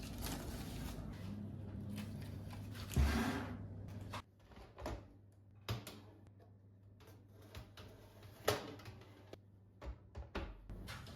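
Household handling sounds: scattered short knocks and clicks of things being moved and set down, with one heavier thump about three seconds in.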